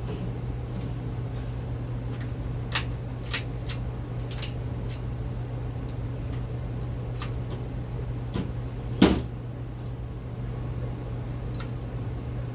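A CO2-powered blowback airsoft pistol fired about eight times at irregular intervals, each shot a short sharp crack, the loudest about nine seconds in. A steady low hum runs underneath.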